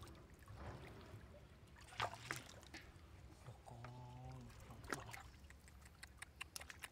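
Faint splashing and trickling of shallow water, with scattered sharp clicks and knocks; a person's voice is heard briefly about four seconds in.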